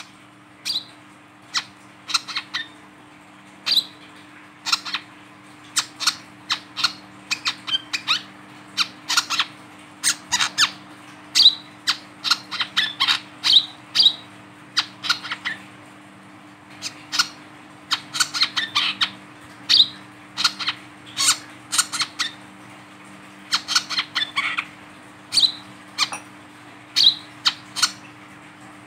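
Male brown-throated sunbird held in the hand, giving sharp, high chipping calls in irregular quick runs, at times several a second, over a faint steady low hum.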